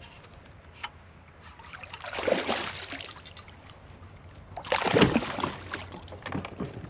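Water sloshing and splashing around a kayak in a few short bursts. There is a sharp click about a second in, and the loudest splash comes about five seconds in.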